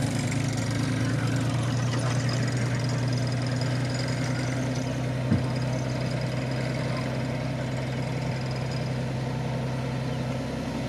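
Diesel dump truck engine running steadily while the tipper bed is raised, with a single sharp knock about five seconds in.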